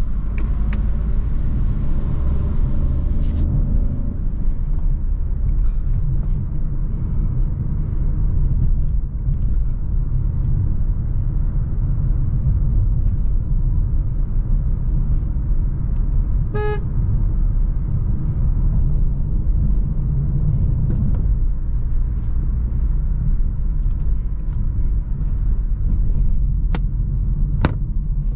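Steady road and engine rumble of a Jeep Avenger with the 1.2 turbo petrol three-cylinder, driving along. A single short car-horn toot sounds a little past halfway through, and there are two sharp clicks near the end.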